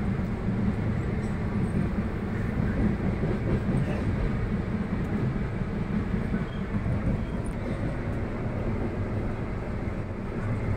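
Passenger train running, heard from inside the carriage: a steady noise of wheels on track with a low hum underneath.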